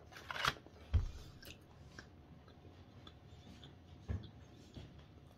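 A man chewing a mouthful of pepperoni pizza, with a brief rustle and a soft thump from the cardboard pizza box about a second in, and another soft thump about four seconds in.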